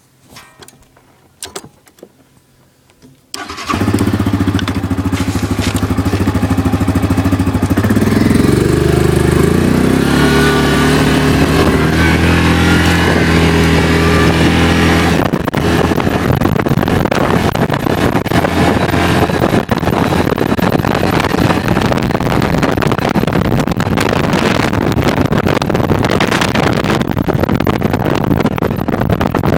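A vehicle engine starts suddenly about three seconds in and runs loudly, its pitch wavering and rising for several seconds; from about halfway through, the engine is buried under a loud, steady rushing noise.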